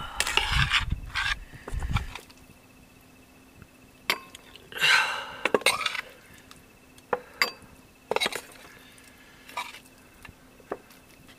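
Utensils and dishes clinking and knocking, with scattered sharp clicks and a couple of short rustling, handling bursts near the start and about halfway through, as cooked food is served.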